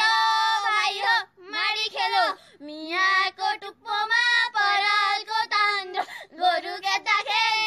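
High female voices singing the traditional Nepali threshing song in long, wavering, drawn-out phrases, with short breaks for breath.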